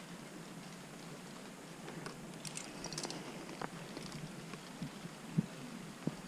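Close-up scuffs and taps of a rock climber's hands and shoes moving on wet rock, with a cluster of sharp clicks about two and a half to three seconds in and a few short knocks later, the loudest about five seconds in, over a faint steady hiss.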